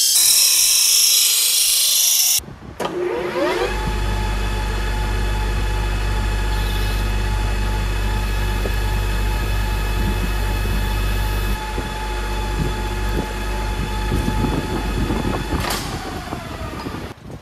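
A homemade 20 V battery bench grinder runs with a loud high hiss for about two seconds. Then a metal lathe spins up, rising in pitch, and runs steadily with a low hum and a whine. Near the end it winds down, falling in pitch.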